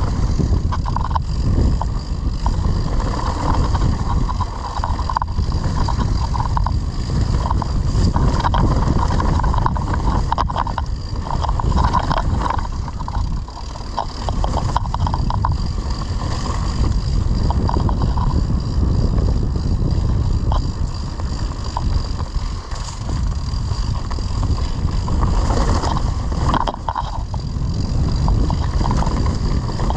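A mountain bike riding off-road: a continuous low rumble from the tyres and wind on the microphone, with scattered short knocks and rattles.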